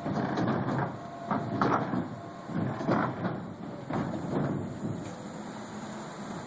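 Axxis motorized turntable running: a noisy mechanical sound that swells and fades irregularly, with faint steady tones over it.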